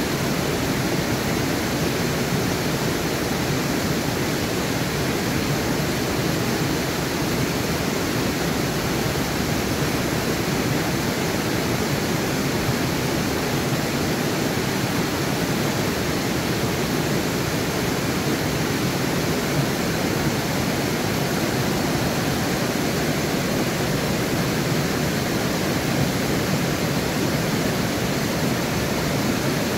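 A river cascading down a run of rock ledges: a steady, unbroken rush of whitewater.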